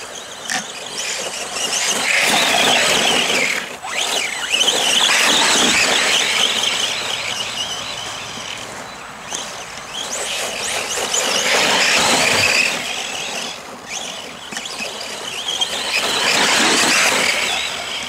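Arrma Senton 3S BLX RC short course truck's brushless motor and drivetrain whining as it is driven over rough grass. The high-pitched whine swells up and fades away in three long bursts of throttle.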